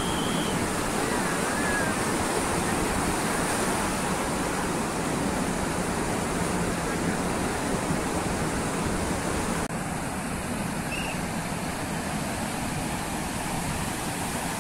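Sea surf breaking on the shore: a steady rush of noise that dips slightly about ten seconds in.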